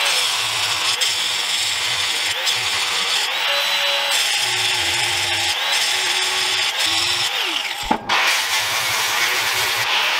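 Angle grinder grinding a steel part held in a vise: a steady high motor whine over the hiss of the disc on the metal. It breaks off for a moment about eight seconds in, then picks up again.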